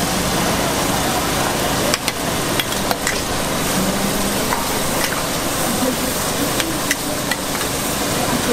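Spicy red sauce and vegetables sizzling in a large wok as a metal ladle and spatula stir through them, a steady hiss broken by the occasional clink of metal on the pan.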